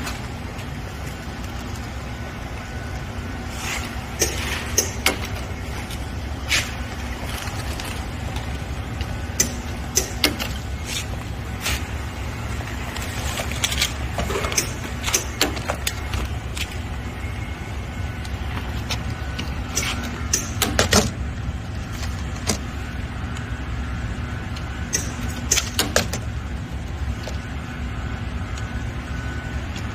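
Four-lane industrial roll packaging machine running as it fills and seals liquid coffee concentrate into pouches: a steady motor hum with sharp mechanical clicks and clacks at irregular intervals.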